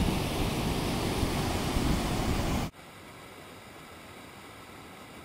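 Loud, steady rush of whitewater on an artificial canoe slalom course, with a heavy low rumble. About two and a half seconds in it cuts off abruptly to a much quieter, even rush of water.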